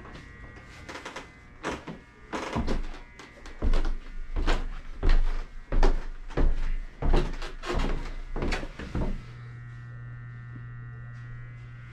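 Footsteps going down a flight of stairs: a dozen or so heavy thuds, about one every half second, for some seven seconds. Near the end the footsteps stop and a steady electrical hum is left.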